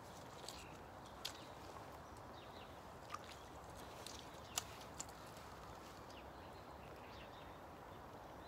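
Quiet steady background noise with faint, short high chirps of small birds and a few sharp clicks, the loudest about four and a half seconds in.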